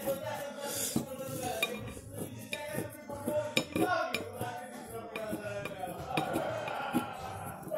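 Small pick-hammer digging tool scraping and tapping at the plaster of a dinosaur-egg excavation kit: a run of quick irregular clicks and scrapes as the chalky plaster crumbles onto a plate.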